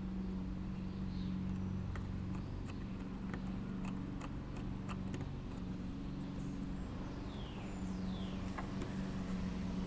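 Steady low hum in the background, with faint small clicks and taps as a screw is threaded by hand into a small-engine carburetor and then turned with a screwdriver. A few faint chirps near the end.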